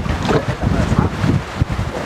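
Wind buffeting the microphone, an uneven low rumbling rush, with faint voices in the background.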